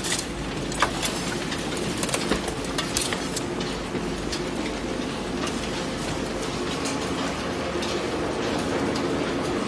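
Waste crusher line running: a steady machine drone with a faint hum, and irregular clattering clicks from the conveyor and the waste it carries, more of them in the first half.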